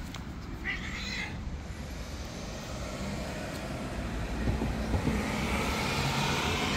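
A cat meows once, short and high, about a second in, over a steady low rumble of traffic. Near the end a passing car's hiss swells and fades.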